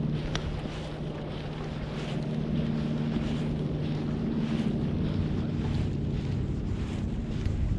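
A steady low engine hum, with wind buffeting the microphone, and one sharp click about half a second in.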